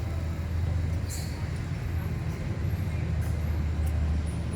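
Street ambience dominated by the steady low rumble of a motor vehicle's engine running close by.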